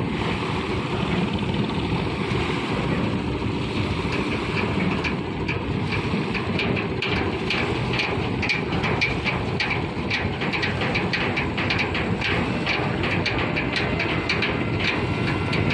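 Engine of a motorized wooden cargo boat passing close: a steady low rumble with a rapid clattering that comes in about five seconds in and grows louder as the boat approaches.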